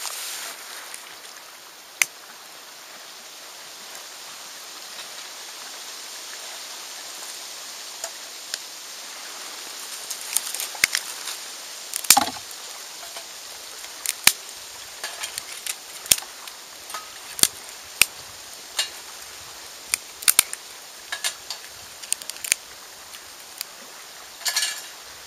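Twigs snapping by hand and a small wood fire crackling in a steel twig-burning camp stove, over a steady hiss. The sharp cracks are sparse at first and come about once a second from roughly halfway through.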